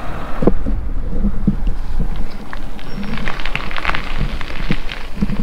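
Wind buffeting the microphone at speed on a downhill run: a constant deep rumble, with scattered clicks and rattles over it.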